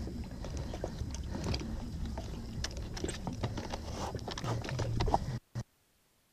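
Faint knocks and clicks as a small outboard motor is fitted onto an inflatable dinghy's transom, over a steady low rumble. The sound cuts out briefly near the end.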